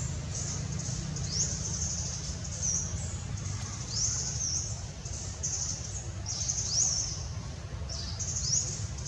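Birds chirping: short, high calls that sweep upward, repeating about once a second, over a steady low rumble.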